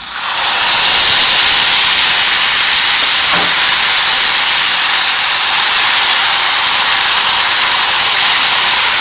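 Hot broth ladled onto golden-toasted orzo in a hot pot, hissing and sizzling loudly as it hits. The hiss jumps up just as the broth goes in and then holds steady.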